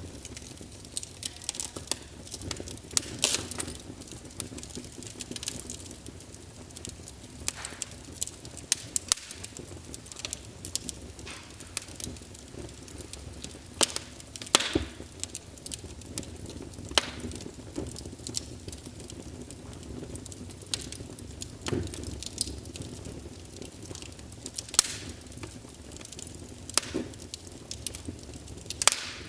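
Fire crackling: a steady low rush of burning, broken by frequent sharp pops and snaps, the loudest every second or two.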